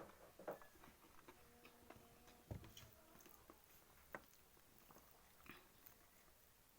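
Faint chewing and mouth sounds of a person eating, with scattered soft clicks; a few are a little louder, about half a second, two and a half, four and five and a half seconds in.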